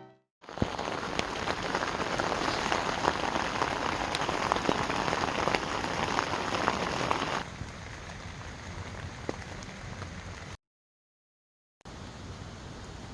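Rain falling with a dense pattering hiss full of small drop ticks. It becomes quieter about seven seconds in and cuts out completely for about a second near the end before resuming.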